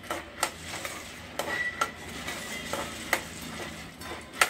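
Metal spoon stirring boondi into sugar syrup in a metal pot, scraping and clinking against the pot about six times at irregular intervals.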